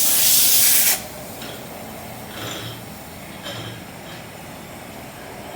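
Compressed air hissing loudly for about a second from a tire inflator on the valve stem, setting the tire's pressure. After that only faint, steady background noise remains.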